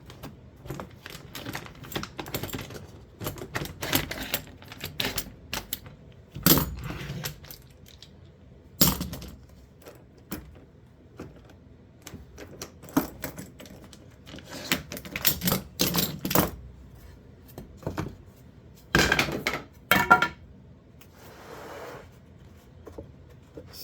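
Clamps being loosened and taken off a freshly glued wooden slab joint and handled on the bench: irregular clicks and metal clinks, with a few louder knocks.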